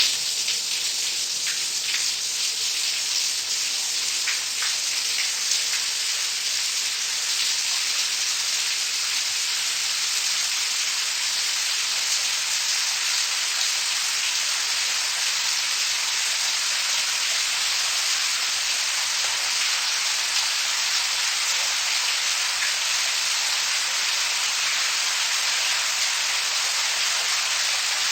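Shower water running steadily, a continuous spray hiss of water falling from the shower head.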